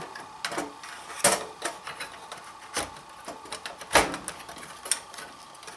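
A handful of separate clicks and knocks as an A2091 SCSI controller card is handled and pushed into an Amiga 2000's expansion slot. The loudest knock comes about four seconds in.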